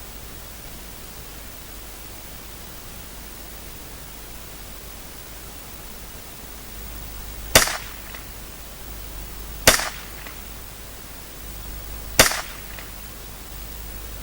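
Henry Youth .22LR lever-action rifle firing three single shots, about two to two and a half seconds apart, over a steady background hiss.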